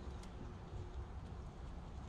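Low, uneven wind noise on the microphone, with a faint steady hum behind it.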